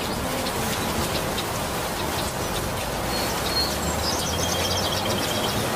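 Steady rain falling on leafy foliage, with scattered single drips. A bird chirps briefly about three seconds in, then gives a quick chattering call in the second half.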